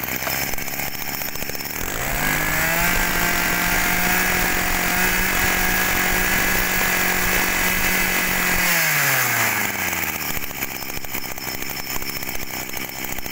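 Small brush cutter engine pull-started, catching at once and idling, then throttled up about two seconds in, held at high revs for about six seconds and let back down to idle near the end.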